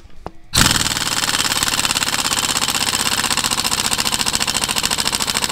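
Pneumatic impact wrench hammering rapidly and steadily on a tight cylinder-head bolt, starting suddenly about half a second in and running for about five seconds before it stops. The head bolts are hard to break loose with the air gun.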